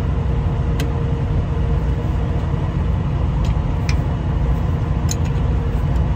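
Steady low rumble of an idling engine, with a few light metallic clicks of a combination wrench working the clamp bolt of an air brake chamber.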